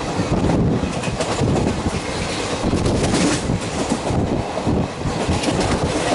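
WAP4-hauled express passenger train running through at speed: a steady rumble of the coaches with the wheels clattering over rail joints in quick irregular clicks.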